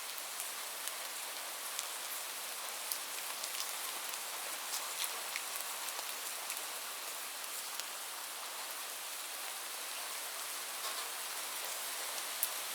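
Light rain falling steadily: an even hiss with scattered ticks of single drops striking a surface.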